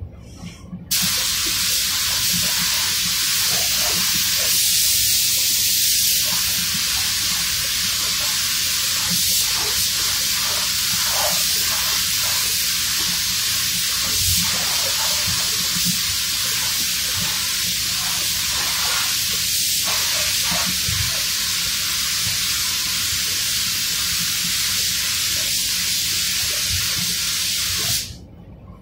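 Pneumatic paint spray gun hissing as clear coat is sprayed onto car body panels. The spray starts about a second in, runs in one continuous pass with small dips, and cuts off suddenly near the end, over a steady low hum.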